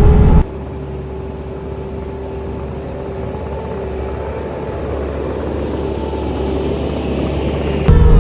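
Loud engine noise cuts off abruptly about half a second in, giving way to a quieter, steady motor hum with a faint whine that grows slowly louder. Near the end the loud engine noise cuts back in just as abruptly.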